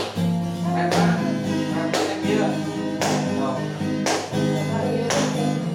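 Acoustic guitar being strummed in an instrumental passage, with chords struck about once a second over a steady low accompaniment.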